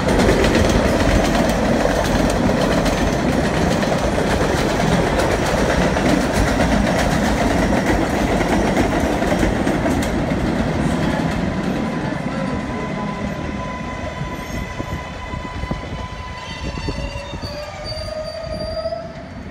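R188 subway trains on the elevated 7 line: loud rumble and wheel clatter for the first ten seconds or so, easing off after that. Then a steady electric whine, with a whine shifting in pitch near the end.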